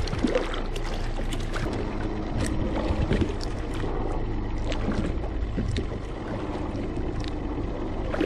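Sea water lapping and sloshing against a kayak's hull, with scattered small splashes and a low wind rumble on the microphone.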